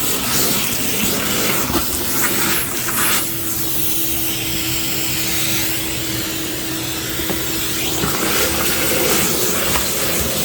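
Shop-Vac vacuum running steadily, its motor giving a constant hum under the rush of air through the hose. The rushing sound changes for a few seconds in the middle as the nozzle works over the surface.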